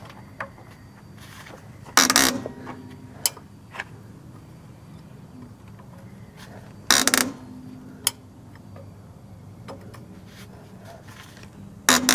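Automatic slack adjuster on a semi truck's air drum brake being backed off counterclockwise with a 7/16 wrench: three loud metallic clunks about five seconds apart, each ringing briefly, with faint clicks between. This noise is the sign that the adjuster is backing off and the shoes are being pulled in.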